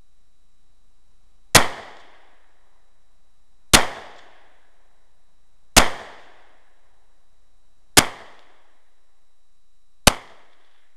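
Rock Island Armory 22 TCM/9mm combo 1911 semi-automatic pistol fired five times at a slow, steady pace, about two seconds apart. Each shot is a sharp crack with a brief trailing echo.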